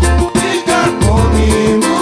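Pagode samba band playing live: heavy low drum beats and a steady run of quick high percussion strikes under bending melodic lines.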